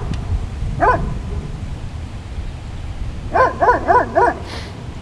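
A dog yipping: one short high yip about a second in, then four quick yips in a row a little past the three-second mark, over a steady low rumble.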